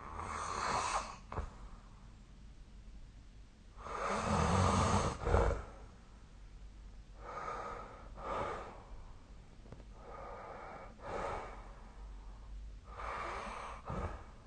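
A sleeping person breathing heavily, a slow noisy breath about every three seconds. One breath about four seconds in is louder and rougher, a snore.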